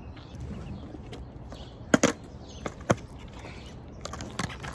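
A skateboard's deck and wheels knocking on asphalt as a rider shifts and rocks on the board: several sharp clacks, the loudest about two seconds in, over a low steady rumble.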